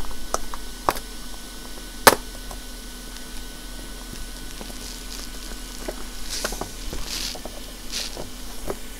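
Small tools being handled on an electronics repair bench: a few light clicks and taps, the sharpest about two seconds in, and several short soft hissy swishes in the second half, over a faint steady hum.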